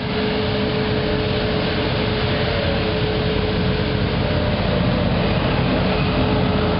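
Compact street sweeper running along the kerb with its gutter brush turning: a steady engine rumble and hiss with a steady whine held over it.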